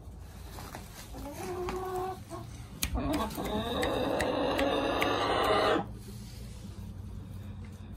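Chickens clucking: a short call about a second in, then louder, continuous squawking from about three seconds in that stops sharply near six seconds.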